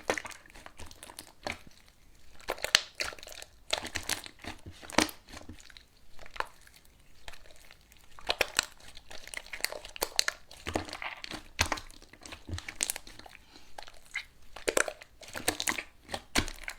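Slime being squeezed and pressed by hand, crackling and crinkling in short irregular bursts with brief pauses between.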